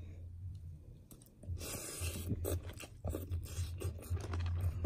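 Close-up chewing and crunching of a raw shrimp salad, irregular and crackly, with short clicks of a fork in the bowl.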